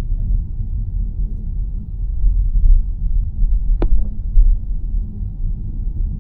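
Low, steady road rumble inside a moving car's cabin, with a single sharp click a little under four seconds in.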